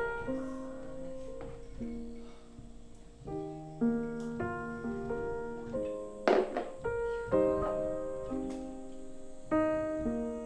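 Background piano music, a slow melody of held notes, with a brief clatter about six seconds in.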